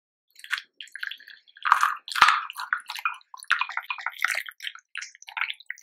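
Hot water poured in a thin stream into a ceramic mug of instant coffee granules while a wooden spoon stirs: irregular splashing and trickling, with two sharp clicks about two and three and a half seconds in.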